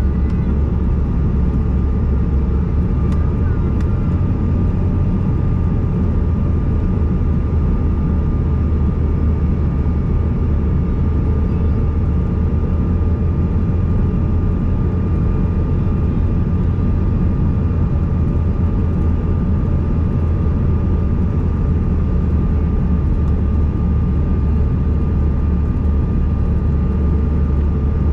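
Steady cabin noise of a Bombardier CRJ-200 in flight: the drone of its two rear-mounted General Electric CF34 turbofans and the airflow over the fuselage, a deep rumble with a thin whine held at one pitch.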